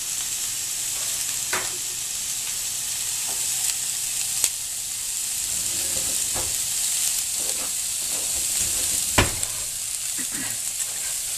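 Chopped onion, green bell pepper and jalapeño sizzling in olive oil in a frying pan as they start to sweat: a steady hiss. A few sharp knocks come through it, the loudest about nine seconds in, and a slotted spatula stirs and scrapes the vegetables near the end.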